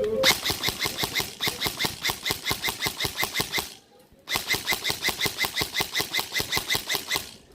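Airsoft gun firing on full auto in two long bursts of rapid evenly spaced shots, the first about three and a half seconds long and the second about three seconds, with a short pause between them.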